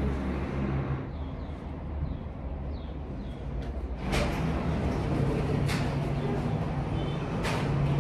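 Steady low rumble of a road vehicle, with a few sharp knocks in the second half.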